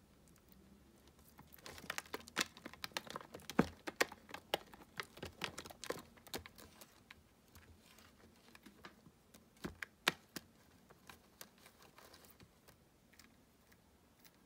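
A rapid, irregular flurry of light clicks and scratches, like a baby tegu's claws skittering on a hard plastic tub, thinning out to scattered clicks after the midpoint.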